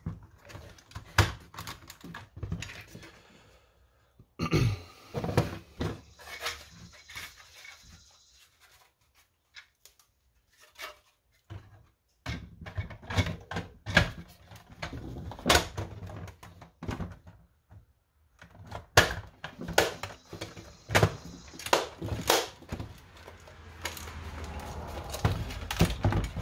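Plastic shell parts of a Nerf Vulcan blaster knocking and clicking as they are handled and fitted back together: an uneven run of taps and clunks, with a few seconds' pause near the middle.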